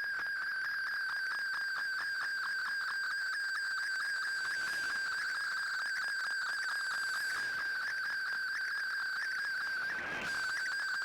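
Shortwave digital-mode data signal from the Shortwave Radiogram broadcast, received on an Icom IC-R8600: a steady high whistle with rapid regular ticks running through it. The signal briefly fades, with a burst of hiss, about ten seconds in.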